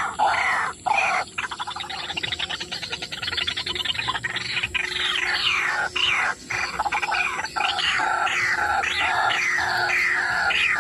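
White-breasted waterhen calls: a loud, continuous series of short repeated croaking notes, several a second, broken by a fast trill from about a second and a half to four seconds in. This is the call used to lure the birds to the snares.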